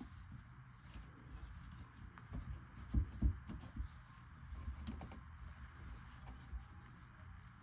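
Light knocks and clatter of a garbage disposal and its drain pipe being handled and lined up, with two louder thumps about three seconds in.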